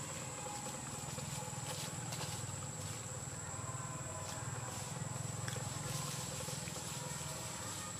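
A steady high-pitched insect drone, with a low background hum underneath and occasional faint clicks and rustles.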